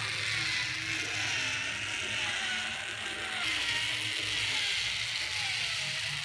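Small electric motor and plastic gearbox of an ARTEC Running Meow Light toy car whirring steadily as it drives itself across a table on electricity stored in its capacitor, the pitch wavering slowly up and down.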